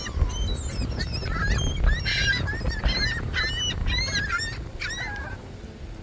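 A flock of gulls calling, many short rising-and-falling cries overlapping one another, thinning out and stopping about five seconds in, over a low rumble.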